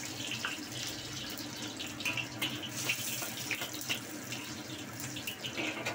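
Chopped garlic sizzling and crackling in hot oil in a wok as it is sautéed.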